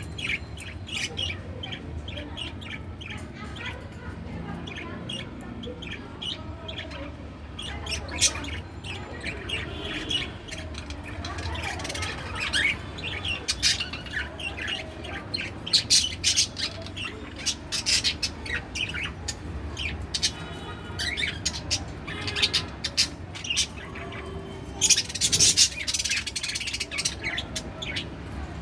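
Pet budgerigar chirping and chattering in quick short calls, busier and louder in the second half, over a steady low hum.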